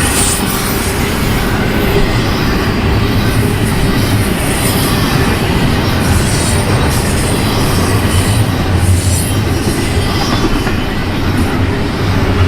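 Freight train rolling by: a steady rumble of steel wheels on rail, with some wheel squeal.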